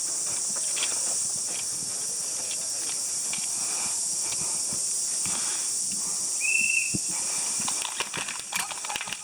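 Steady, high-pitched insect chorus. About two-thirds of the way in there is one short high chirp, and near the end a run of sharp clicks and rustling.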